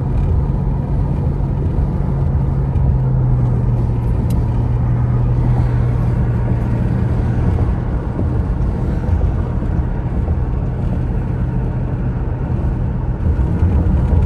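Car driving at road speed, heard from inside the cabin: steady tyre and road noise with a low engine drone that eases a little about halfway through.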